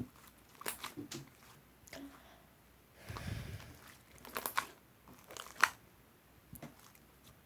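Slime being squeezed and poked by hand: scattered sticky clicks and pops, with a softer squishing rush about three seconds in and the sharpest pop late on.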